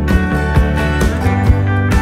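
Background instrumental music: a guitar-led track with a steady beat, about two beats a second.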